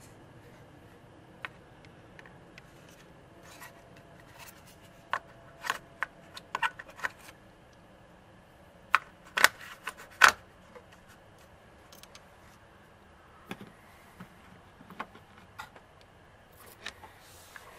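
Scattered clicks and light knocks of a truck battery's terminal clamp and red plastic positive-terminal cover being handled and fitted back on. The loudest pair of sharp clicks comes about nine and ten seconds in.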